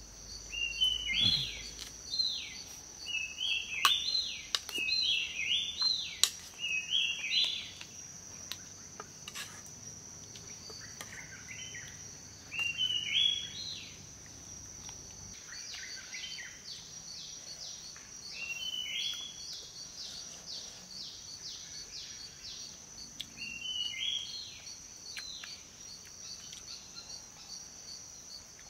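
Forest ambience: a steady high-pitched insect drone throughout, with a bird repeating a short call phrase over and over, densest in the first eight seconds and again in bursts later. A few sharp clicks sound near the start.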